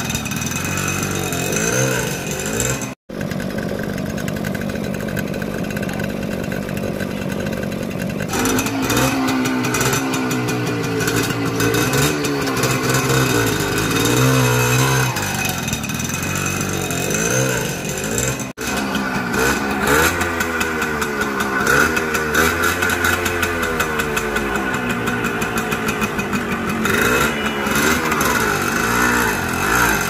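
Suzuki AX100 motorcycle's small single-cylinder two-stroke engine running as the bike is ridden slowly, its revs rising and falling throughout. The sound drops out briefly twice, about three seconds in and again near the middle.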